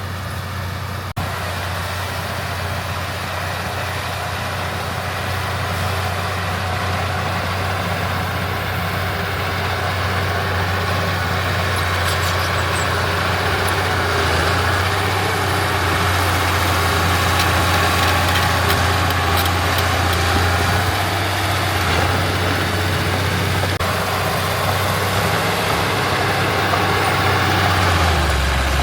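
Heavy diesel engine of earthmoving equipment running steadily with a deep hum, slowly growing louder. Its pitch drops near the end as the engine slows.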